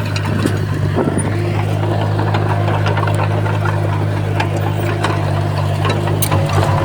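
Heavy diesel engine of an earthmoving machine running steadily in a deep, even drone, with scattered small clicks and clanks over it.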